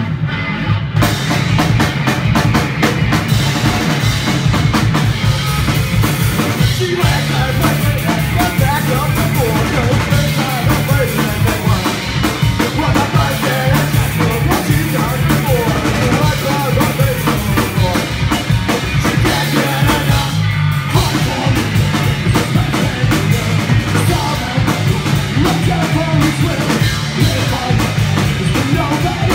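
Live punk rock band playing an instrumental passage on electric guitar, electric bass and drum kit, loud and driving, with a brief break about two-thirds of the way through.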